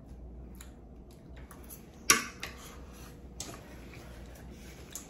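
Eating sounds: light clicks of forks against a ceramic platter, with one sharp, loud clatter about two seconds in as a fork is set down on the platter.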